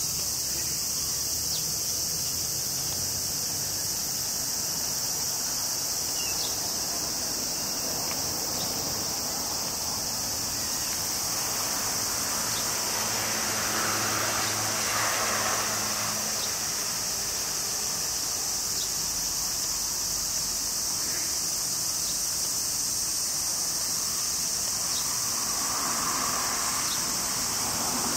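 Steady, high-pitched shrill of an insect chorus, unbroken and even. A vehicle passes on the road about halfway through.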